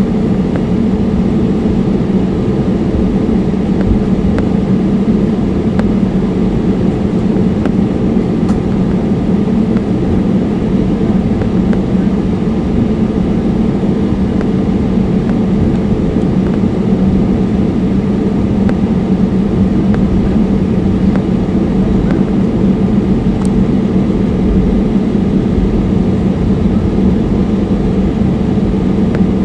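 Airbus A320neo cabin noise from its CFM LEAP-1A engines: a steady, even hum with no change in pitch or level.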